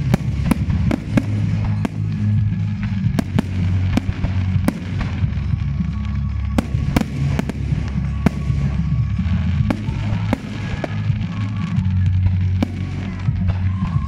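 Fireworks display: a string of sharp bangs and crackles from bursting shells at irregular intervals, with music playing underneath.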